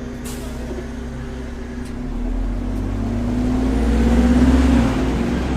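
A motor vehicle's engine accelerating close by. A deep rumble comes in about two seconds in and grows louder as its pitch rises, peaking near the end before easing off. There is a short click just after the start.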